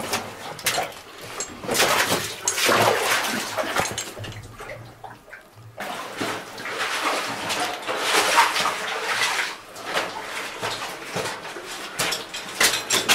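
A caver moving through a cave passage: rustling and scraping of clothing and gear against rock in swells of a second or two, with scattered clicks and knocks of equipment.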